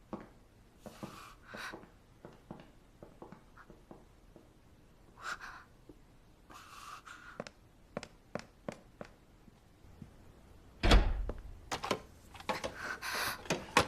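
Scattered light knocks and rustling in a small room, then a heavy door thud about eleven seconds in, followed by a cluster of further knocks.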